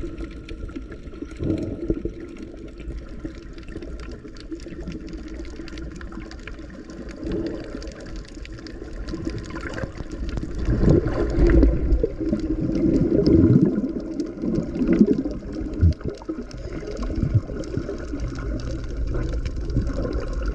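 Muffled underwater sound through a camera's waterproof housing: a steady low rumble and water hiss, with bubbly gurgling that grows louder from about halfway through.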